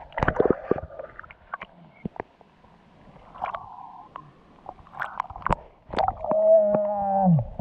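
Sea water sloshing and gurgling around a camera dipped in and out of the surface, with scattered sharp clicks and knocks. About six seconds in, a loud, drawn-out pitched tone rings for just over a second and drops in pitch as it ends.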